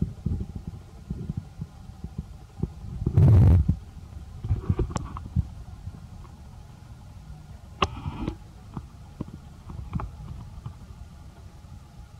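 Low, irregular rumbling and thumping on the microphone, with a loud low burst about three seconds in and a few sharp clicks.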